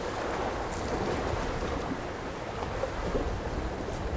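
Steady wind rushing on the microphone over the wash of open water.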